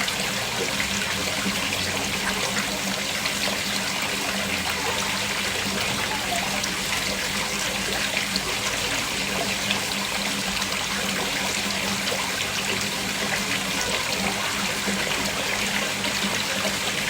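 Small artificial waterfall, water splashing and trickling steadily into a pond. A faint steady hum sits underneath the water.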